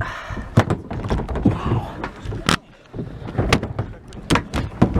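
A series of sharp knocks and bumps, about five, irregularly spaced over a rustling, handling-type background.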